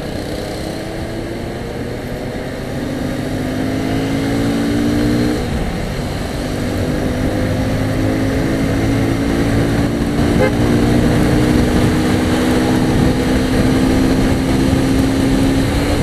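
Motorcycle engine running under way, its pitch climbing steadily, dropping back once about five seconds in, then climbing again as the bike speeds up, over road and wind noise.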